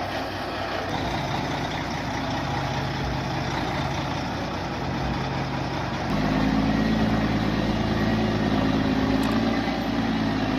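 A heavy machine's engine running steadily, getting louder and deeper about six seconds in.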